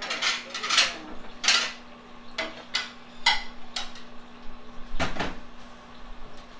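Dishes and cookware clattering: a string of separate clinks and knocks, roughly nine in six seconds, a few of them ringing briefly, over a low steady hum.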